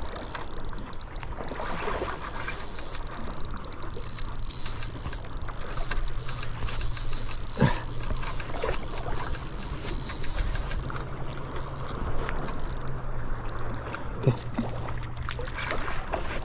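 Daiwa Certate 24 spinning reel's drag giving out line in a steady, high-pitched buzz as a hooked kahawai runs, then in short spurts for the last few seconds.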